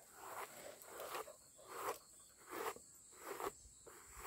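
A plastic comb drawn again and again through a Border Collie mix's thick coat: faint raspy swishes, a stroke roughly every second.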